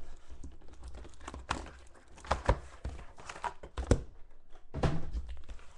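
Panini Select Football trading-card box being opened and its foil-wrapped packs handled on a table: scattered clicks and knocks of cardboard, with crinkling of the wrappers.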